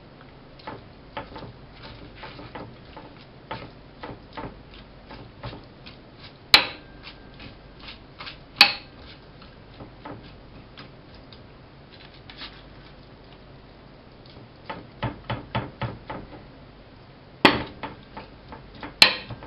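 Metal tongs clicking and scraping against a ceramic plate as shredded sauerkraut is spread out, in irregular light taps with a quick cluster of them a little past the middle. A few sharp knocks stand out, the loudest about six and a half and eight and a half seconds in.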